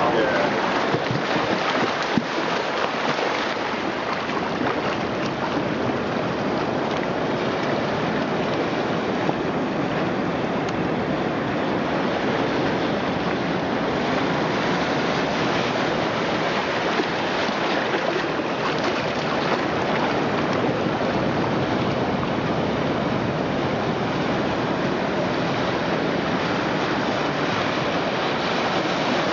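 Recorded ocean surf playing through loudspeakers built into a sculpture: a steady wash of wave noise.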